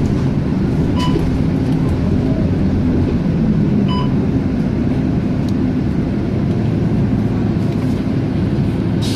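Scania K230UB city bus's five-cylinder diesel engine running steadily as the bus cruises, heard from inside the passenger cabin. Two short electronic beeps sound about a second in and again about four seconds in.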